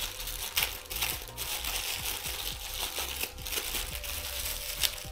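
Thin white protective wrapping crinkling and rustling as hands unfold it from a new transmitter gimbal, with scattered sharp crackles.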